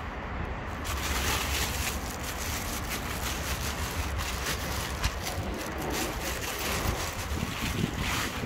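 Wind blowing across the microphone: a steady rushing noise with a low rumble beneath it, getting fuller about a second in.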